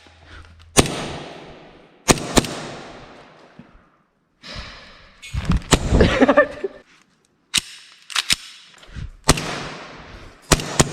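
Airsoft guns firing about ten sharp single shots at irregular intervals, each followed by an echo that dies away.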